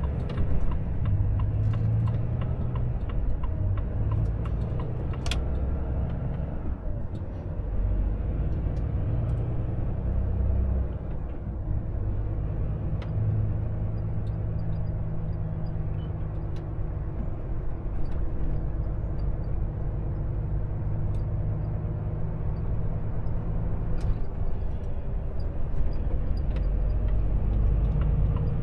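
Volvo FH 460 truck's 13-litre six-cylinder diesel heard from inside the cab, accelerating with a steady low engine drone and road noise. The drone eases off briefly twice as the truck shifts up.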